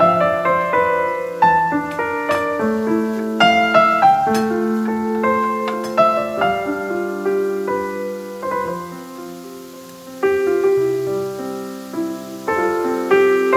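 Soft background piano music, a gentle melody of sustained notes over a slow bass line, easing to a quieter passage partway through before picking up again.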